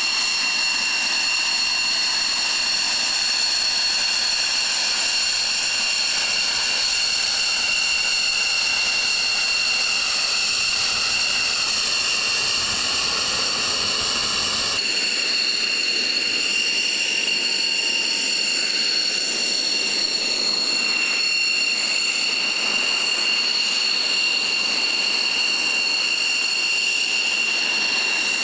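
The X-47B's Pratt & Whitney F100 turbofan running at taxi power, a steady high-pitched jet whine with several held tones over a rushing noise. The sound shifts abruptly about halfway through.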